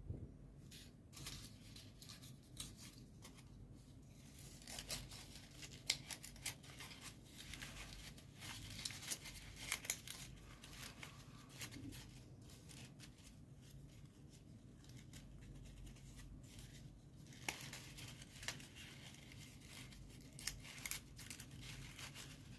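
Paper rustling and crinkling as folded origami units are handled and slotted together into a kusudama, with scattered faint ticks and scrapes.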